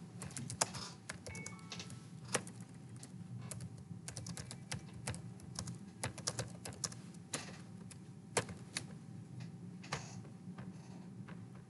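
Typing on a computer keyboard: irregular runs of short key clicks, with brief pauses between them.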